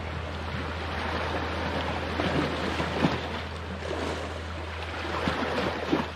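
Sea waves washing and splashing against rocks, a steady wash with a few louder splashes.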